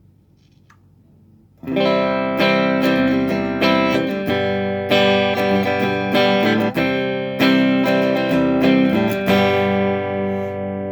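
Guitar played through a Russel RG15 combo amp: after a quiet first second and a half, a run of strummed chords that ring out and fade near the end.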